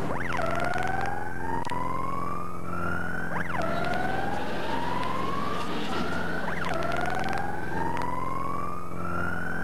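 A siren whose pitch rises slowly for about three seconds, then jumps up and drops back before starting again, three times over. A steady low hum runs under it.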